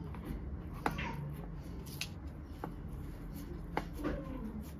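Hands pressing soft fresh paneer into a cloth-lined container and working the cotton cloth around it: a soft rustle of fabric with about five light, sharp taps spread through, over a low steady hum.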